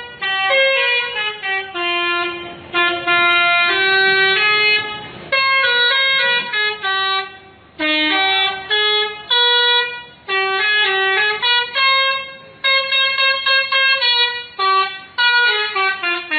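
Bus 'telolet' musical horn playing a quick melody of stepped notes, in repeated phrases of several notes each a couple of seconds long, with brief breaks between them.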